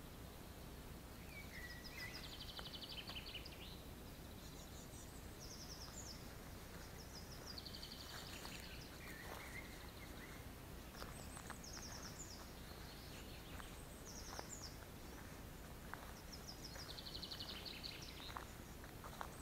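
Songbirds singing faintly: short, rapid trilled phrases repeated every few seconds, over a low steady background hum.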